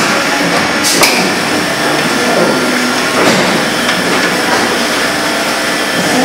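Juwei JWM450 injection blow molding machine running through its cycle: steady machine noise, with a sharp clack and a hiss of air about a second in as molded plastic bottles are stripped off onto the conveyor.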